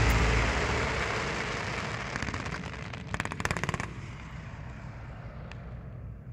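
Aerial fireworks: the rumble of earlier bursts dies away, then a rapid volley of crackling pops sounds for just under a second about halfway through. A faint tail follows.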